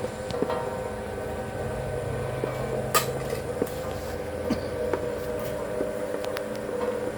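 Amplang dough-forming machine running with a steady mechanical hum, with scattered light clicks and one sharper click about three seconds in.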